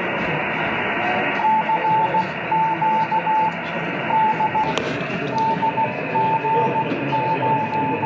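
Radio receiver audio: a steady hiss with a single tone keyed on and off in Morse-code dashes and dots, the received signal of a test transmitter.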